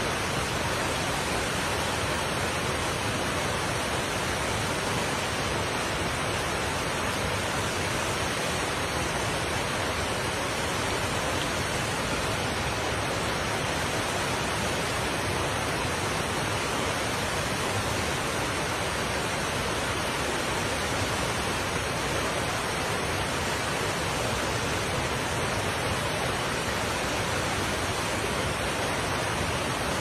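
Waterfall and shallow rocky stream rushing: a steady, even hiss of falling and running water that does not change.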